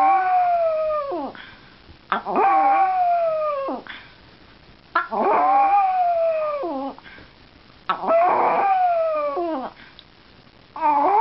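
Pomeranian howling: four drawn-out howls roughly every three seconds, each rising briefly and then sliding slowly down in pitch, with a fifth starting near the end.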